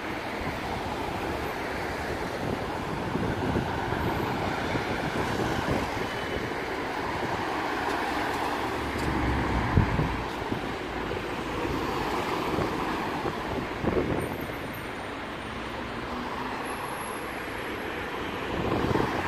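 Steady road-traffic noise, with brief louder swells about ten and fourteen seconds in.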